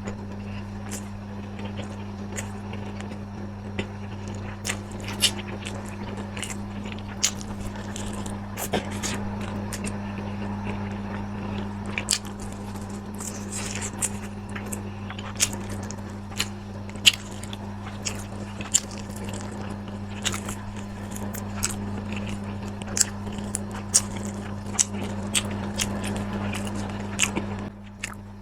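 Close-miked eating: irregular sharp crunches and chewing, over a steady low hum that drops away near the end.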